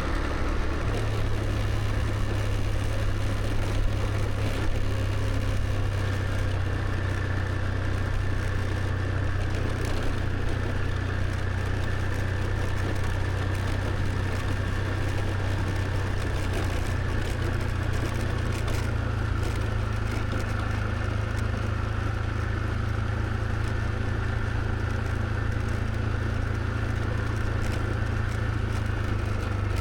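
Motor scooter running at a steady cruise, a constant low rumble with a faint high whine that drops slightly in pitch a little past the middle.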